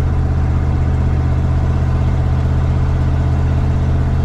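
Ford 302 V8 with Holley Sniper EFI idling steadily.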